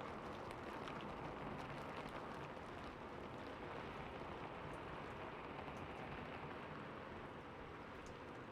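Steady rain falling on a rooftop: an even hiss of rain with scattered single drops ticking through it.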